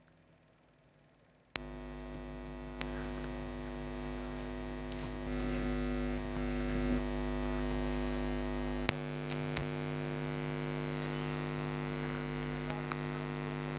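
Steady electrical mains hum from bench repair equipment, switched on with a click about a second and a half in, with a few sharp clicks later on.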